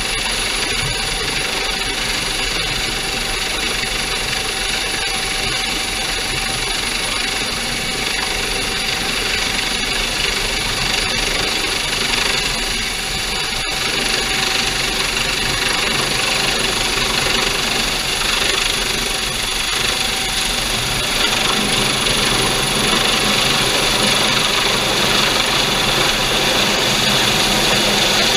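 Coast Guard MH-65 Dolphin helicopter hovering low overhead: a steady turbine whine and rotor noise mixed with the rush of rotor downwash. It grows louder in the second half as the hoist line comes down to the boat.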